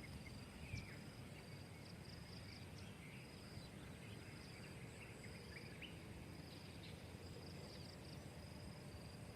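Faint outdoor ambience of insects trilling at a steady high pitch that fades in and out, with a few short high chirps and a low background rumble.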